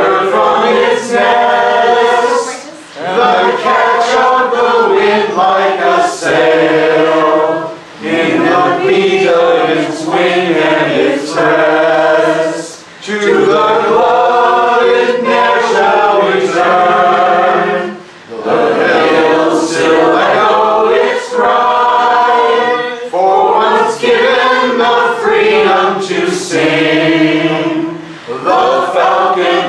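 A group of voices singing a song together, unaccompanied, with a man leading. It goes in phrases of about five seconds with short breaks between them.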